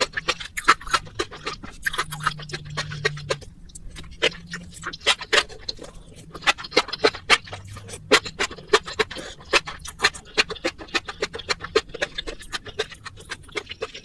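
Close-miked eating sounds: chewing noodles, a rapid, irregular run of small mouth clicks several times a second.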